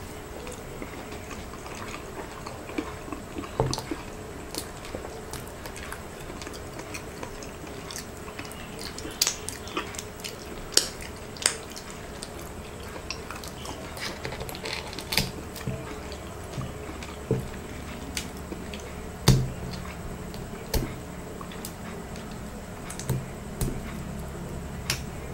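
Close-miked eating of sauce-coated balut eggs: wet chewing, lip smacks and finger licking, broken by many scattered sharp clicks and taps. The loudest knock comes about three quarters of the way through.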